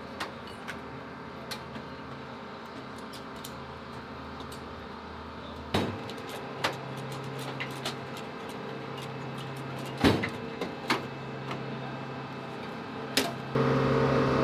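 Metal tool cabinet drawers sliding open and shut and hand tools clinking as they are picked out, with sharp clanks about six, ten and thirteen seconds in, over a steady machine hum. Near the end a louder steady hum cuts in.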